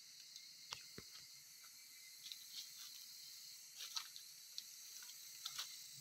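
Quiet outdoor ambience: a faint steady high hiss with a few scattered soft clicks and rustles.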